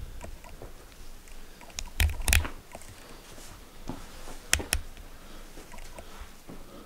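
Footsteps scuffing on a gritty rock floor and small clicks and knocks of a handheld camera being moved, with two louder clusters of sharp knocks about two seconds in and again about four and a half seconds in.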